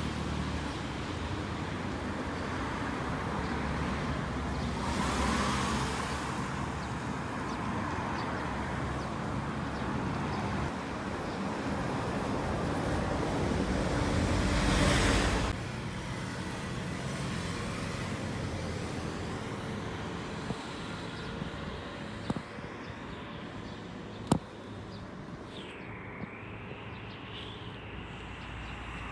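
Road vehicle noise: a steady rumble with two louder swells, about five and fifteen seconds in, dropping suddenly just after the second. A few sharp clicks sound near the end.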